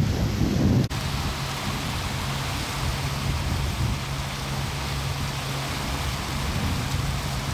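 Pontoon boat underway: a steady low motor hum under a continuous rush of wind and water. The sound breaks off abruptly and changes about a second in.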